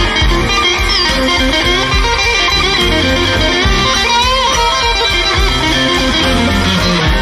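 Live slow blues band with an electric guitar solo on a Stratocaster-style guitar, with string bends about four seconds in, over bass, drums and a second guitar.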